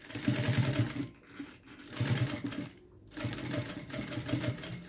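Jack industrial sewing machine stitching a seam in three short runs, stopping and starting in between, each run a fast, even chatter of stitches.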